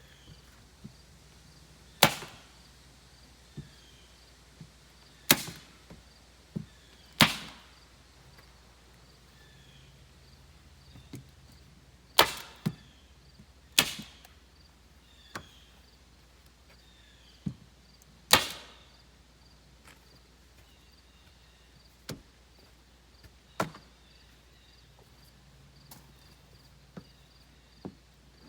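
Hand tool striking wood: sharp single strikes at irregular intervals, the loudest half-dozen spread a couple of seconds apart with fainter knocks between, each with a short ring.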